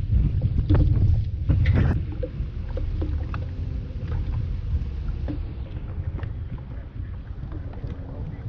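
Gusty wind buffeting the microphone in a steady low rumble, with choppy water lapping at a small boat's hull. A few light knocks and clicks come in the first couple of seconds.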